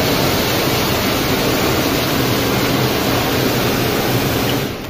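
Loud, steady rushing noise, like static or heavy wind on the microphone, that cuts off suddenly near the end.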